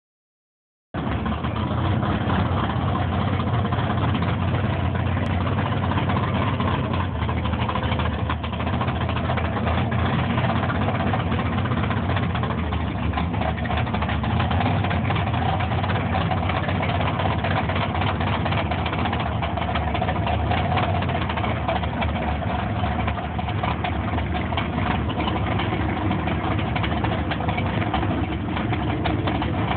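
Mud-racing truck's engine idling steadily, starting about a second in.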